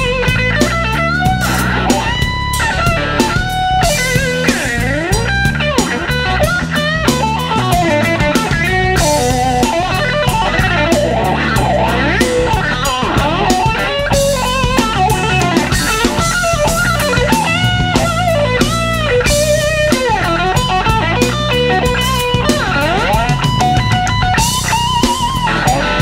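Electric blues band playing an instrumental passage: a lead electric guitar solo full of string bends over bass guitar and drum kit.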